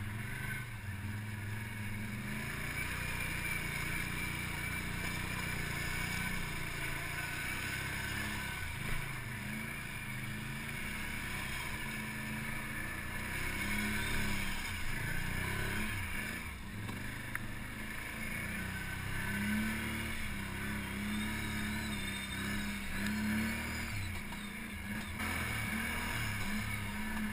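ATV engine running under load while the quad is ridden through mud, its revs rising and falling with the throttle.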